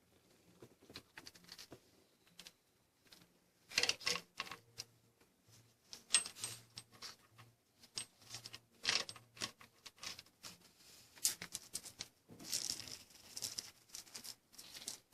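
Hand tools and metal engine parts clicking and rattling in irregular clusters of sharp clicks, with several louder flurries of rattling.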